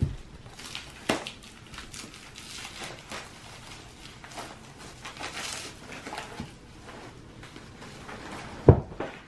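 A rolled-up rug being unwrapped and unrolled: its wrapping and backing rustle and crinkle, with a few sharp knocks, the loudest near the end.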